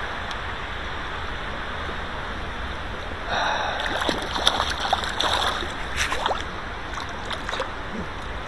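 Steady rush of a trout stream around the angler's legs. About three seconds in, some three seconds of splashing begin as a hooked trout thrashes at the surface while being brought to hand.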